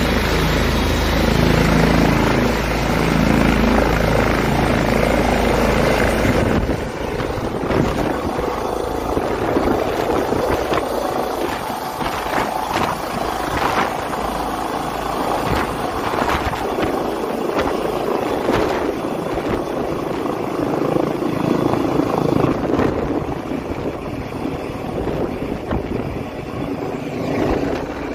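Air ambulance helicopter lifting off and climbing away overhead: loud rotor and turbine noise. For the first six seconds or so, a heavy low rumble of rotor downwash buffets the microphone. It cuts off abruptly, leaving a rushing rotor sound with repeated surges as the helicopter climbs away.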